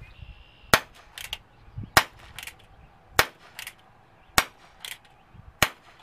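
Umarex Colt Peacemaker CO2 pellet revolver fired one-handed five times, a sharp crack about every 1.2 seconds. Fainter clicks come between the shots as the single-action hammer is cocked for the next shot.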